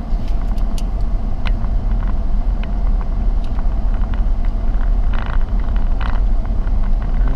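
Car driving slowly over a rough, potholed road, heard from inside the cabin: a steady low rumble of engine and tyres with scattered small knocks and rattles.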